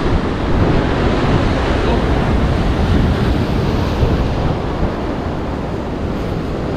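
Ocean surf breaking and washing over coastal rocks: a steady, loud wash of foaming whitewater.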